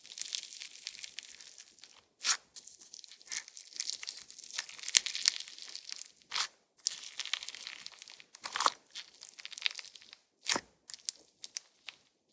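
Crunch-texture slime being squeezed and stretched by hand: dense crackling and popping, with about five sharper, louder pops along the way.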